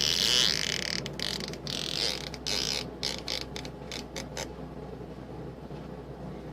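A fart that starts suddenly and loud, then breaks into a run of irregular popping clicks for a few seconds before tailing off quieter.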